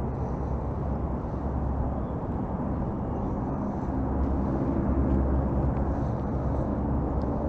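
Steady low rumble of distant traffic, swelling a little about four seconds in as a vehicle passes.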